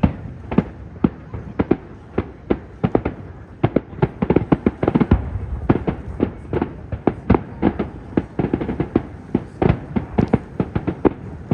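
Fireworks display: a rapid, irregular string of bangs and crackles from shells bursting overhead, several a second, over a low rumble.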